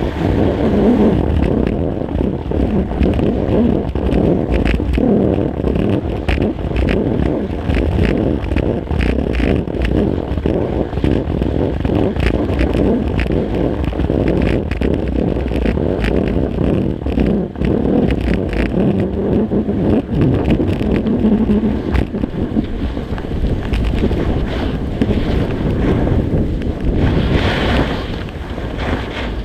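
Alpine skis running fast over packed snow on a groomed piste: a steady rush of wind against the camera's waterproof housing with the skis scraping and chattering underneath, and a brighter, hissing edge scrape near the end.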